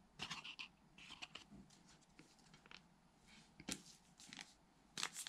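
Trading cards being handled: faint, scattered rustles and small clicks of card stock sliding and tapping, with a sharper click a little after the middle and a few more near the end.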